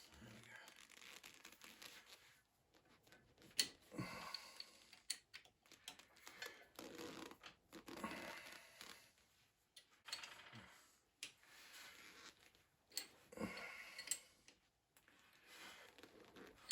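Faint, scattered clicks and brief rustling handling noises of the lathe setup being adjusted by hand, with no machine running.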